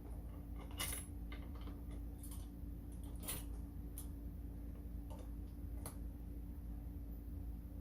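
Scattered light clicks and taps, about half a dozen at uneven intervals, as small hardware (nuts, washers, springs) is handled and fitted onto a ride-on toy car's axle assembly, over a steady low hum.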